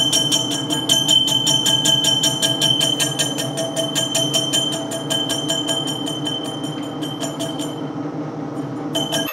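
Monarch lathe taking a facing cut on the TIG-built-up face of a stainless steel impeller: a steady machine whine with a rapid, regular ticking from the cut. The ticking stops about three-quarters of the way through and briefly returns just before the end.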